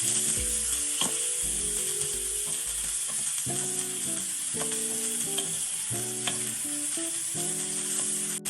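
Bell peppers sizzling in hot oil in a skillet, with a few sharp taps of a utensil as they are stirred.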